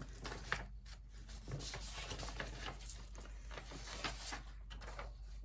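Paper rustling and soft handling noises as the pages of a booklet are turned.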